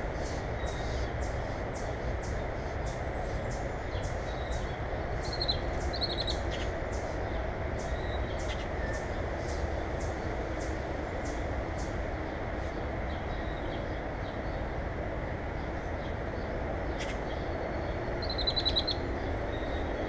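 Songbirds calling around a backyard bird feeder. Short high chips repeat about two or three times a second through the first half, with brief trills around five to six seconds in and a louder trill near the end, over a steady low rumble.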